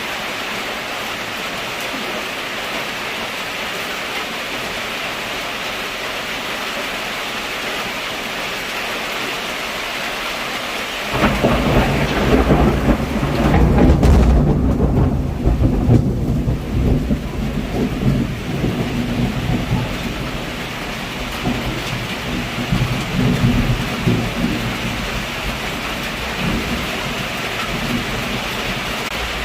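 Heavy rain falling steadily. About eleven seconds in, thunder breaks in and rumbles deeply for around ten seconds, loudest a few seconds after it starts, then dies away through a few weaker rumbles back to the rain.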